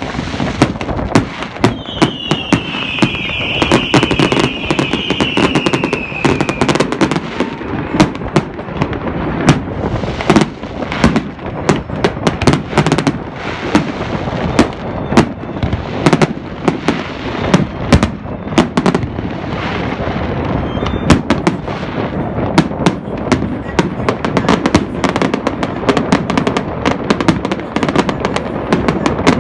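Fireworks going off in rapid succession, with many sharp bangs over a continuous crackling rumble. A high, slightly falling whistle runs for a few seconds near the start.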